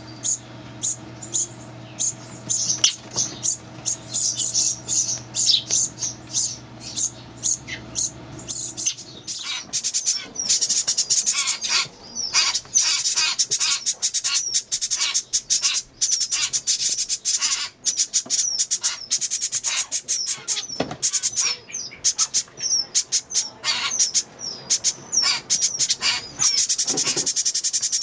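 Baby songbirds begging for food: rapid, repeated high-pitched chirps, sparse at first, then a dense, almost continuous begging chorus from about nine seconds in.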